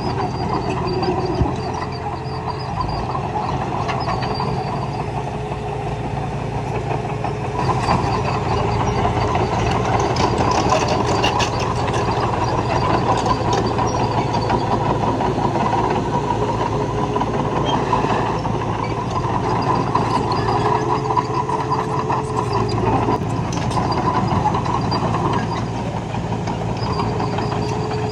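Earth-moving machinery running steadily as a bulldozer and dump truck work the soil: a continuous mechanical drone, with a whine that fades in and out.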